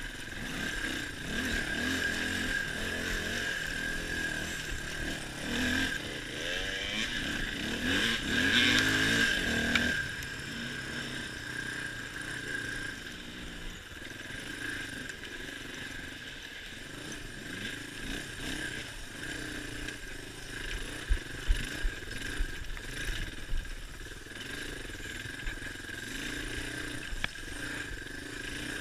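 Suzuki DR350's single-cylinder four-stroke engine being ridden off-road, the revs rising and falling with the throttle and loudest in the first ten seconds, then running steadier and quieter. A few sharp knocks come about two thirds of the way through.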